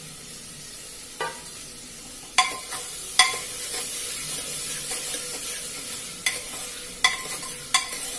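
Chopped vegetables sizzling as they fry in a black pressure-cooker pot and are stirred with a steel spoon, with about six sharp clinks of the spoon against the pot.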